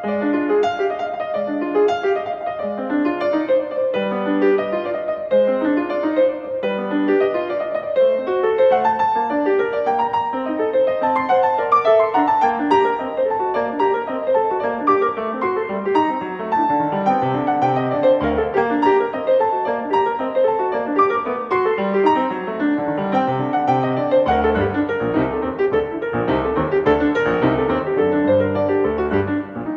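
Steinway & Sons grand piano played solo in a classical style: a quick, unbroken stream of notes in the middle and upper range. Low bass notes join about halfway through and grow fuller near the end.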